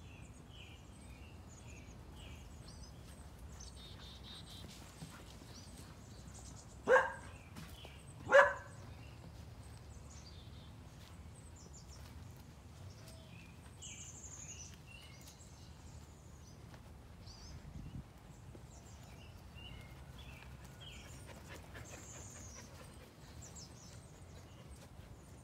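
A dog barks twice, about a second and a half apart, a third of the way in, over faint outdoor background noise.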